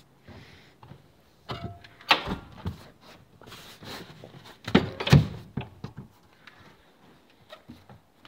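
Thumps and knocks of a boat's upholstered seat cushion and console compartment door being moved and opened by hand: a loud knock about two seconds in and two loud thumps close together around five seconds in, with lighter handling clicks between.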